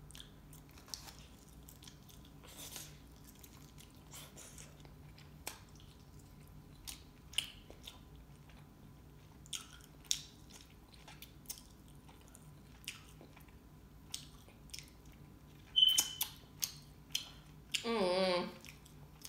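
A person eating chicken wing flats close to the microphone: soft, scattered chewing and mouth clicks, with a louder cluster of clicks and a short squeak about three-quarters of the way through, and a brief hummed voice sound near the end.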